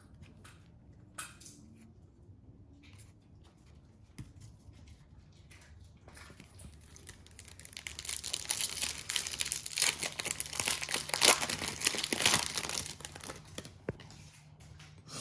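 Foil wrapper of a Topps baseball card pack being torn open and crinkled. A dense crackling starts about halfway in and lasts several seconds, after a few soft handling sounds.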